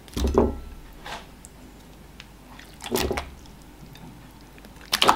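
Thick, slimy ogbono soup poured from a glass bowl onto amala, landing in four separate wet splats and squelches. The first and last are the loudest.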